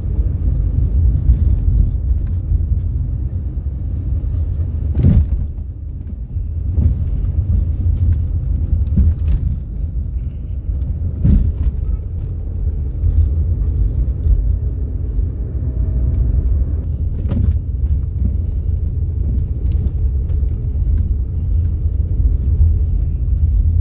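Low, steady road and engine rumble of a moving car heard from inside its cabin, with a few short knocks from time to time.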